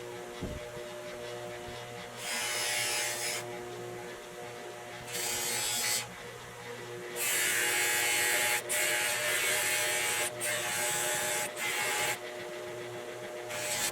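A small electric motor runs steadily with a buzzing hum, while loud bursts of hissing come and go every second or two.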